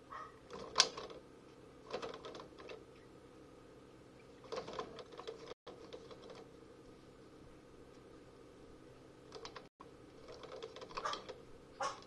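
Bursts of light clicking and rattling from a mouse caught in a plastic mouse trap, struggling in short spells a few seconds apart, busiest near the end.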